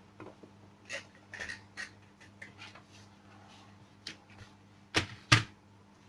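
Scattered small clicks and taps of a hand handling desk equipment, the KVM switch box and a computer mouse, with two louder sharp clicks in quick succession about five seconds in. A low steady hum underneath.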